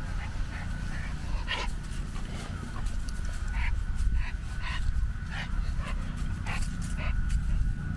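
Samoyed panting in short, quick breaths, roughly two a second, while excitedly nosing at sheep, over a low rumble.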